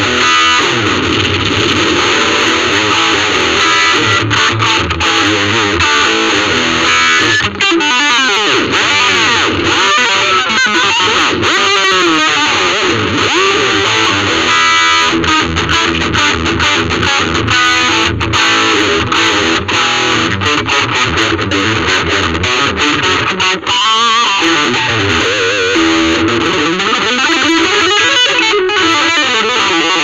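Ibanez RG350DX electric guitar played through a VOX Soundbox Mini amp with distortion: continuous fast picked lead lines, with many bends and vibrato.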